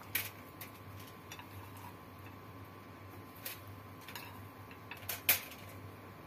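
Scattered light ticks and crinkles of aluminium foil and a plate as handfuls of sliced vegetables are laid over a fish fillet by hand. The sharpest click comes about five seconds in.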